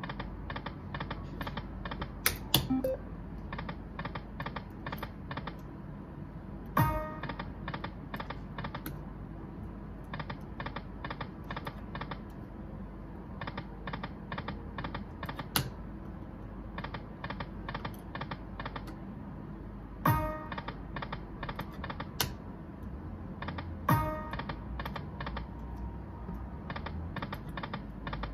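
Dragon Link Golden Century poker machine spinning again and again with no wins. Each spin gives a quick run of electronic ticks as the reels stop, with a louder click or a pitched chime every few seconds, over a steady low hum.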